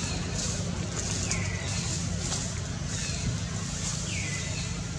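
Outdoor ambience: a steady low rumble with hiss, and three short high animal calls that fall in pitch, spaced about a second or two apart.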